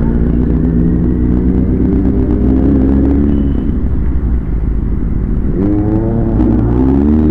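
Inline-four sport motorcycle engine running on the road. About two-thirds of the way in the revs climb sharply, dip briefly as in a gear change, and climb again near the end.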